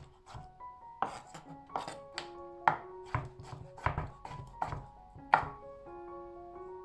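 A knife chopping food on a cutting board: about a dozen sharp, unevenly spaced strokes that stop shortly before the end.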